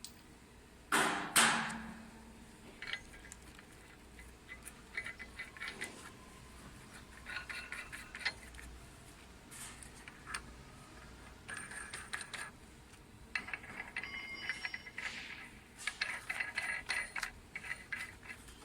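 Two sharp metal clanks, then repeated short bursts of ratchet-wrench clicking as the screws fixing the mold holder to the extruder barrel are tightened.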